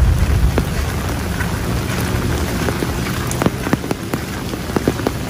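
Rain falling steadily, with many separate drops tapping close by; the taps come more often in the second half. A low rumble fades out within the first second.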